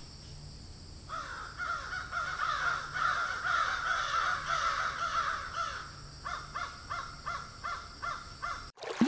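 Crows cawing: many calls overlapping at first, then a run of single caws about three a second, over a faint steady hum and hiss. The sound cuts off abruptly just before the end.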